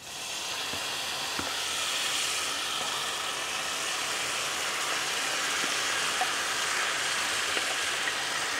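Curry-marinated beef sizzling as it is spooned into a hot pan of oil with fried shallots, garlic and whole spices. The sizzle starts suddenly and then runs steadily, with a few faint clicks.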